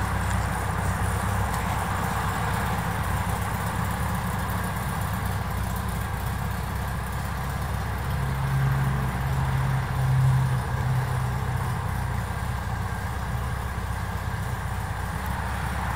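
1959 Volkswagen Beetle's 1200cc air-cooled flat-four engine idling steadily, growing briefly louder for a couple of seconds around eight to ten seconds in.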